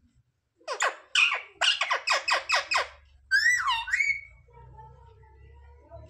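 Indian ringneck parakeet giving a rapid run of about eight harsh squawks, then one swooping whistled call that dips and rises again.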